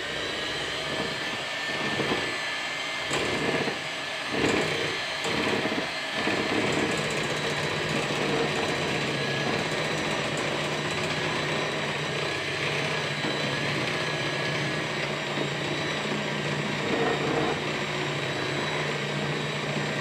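Black+Decker electric hand mixer running steadily, its beaters whirring through thick cake batter in a glass bowl, with a few knocks in the first six seconds.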